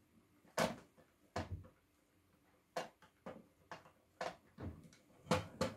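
Irregular plastic clicks and knocks from hands handling and working the shell of a Nerf Retaliator blaster, about ten sharp knocks with short quiet gaps between them.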